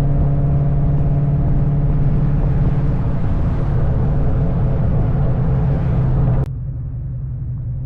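2003 Mustang Cobra's supercharged 4.6-litre V8 through an SLP Loudmouth exhaust, droning loud and steady at an even engine speed. It drops off suddenly about six and a half seconds in, leaving a quieter low rumble.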